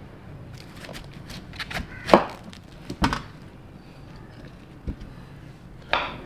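Kitchen knife cutting into a raw cauliflower head on a plastic cutting board as the head is split apart, with a few sharp knocks and cracks, the loudest about two and three seconds in.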